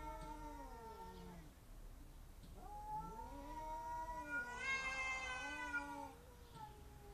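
Cat yowling in long, drawn-out wails that rise and fall in pitch. One wail fades out about a second in. Another runs from about three to six seconds in and grows louder and rougher at its peak. A short wail comes near the end.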